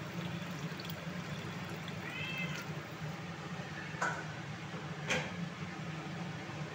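Hot water poured from a kettle into a kadai of chickpea and potato curry at the start, over a steady low kitchen hum. A short, high, rising-and-falling call comes about two seconds in, and two sharp clicks follow near four and five seconds.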